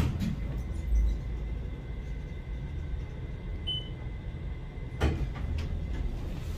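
Traction elevator car with a steady low hum inside the cab. A short high beep sounds about three and a half seconds in, and a door slides about five seconds in.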